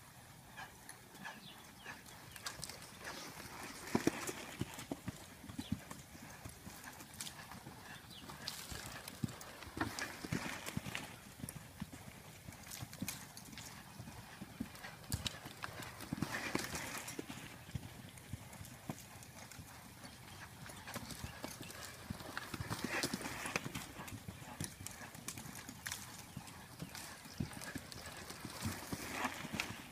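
Hoofbeats of a ridden horse on the sandy dirt of a round pen as it circles the pen, swelling about every six seconds as it passes close.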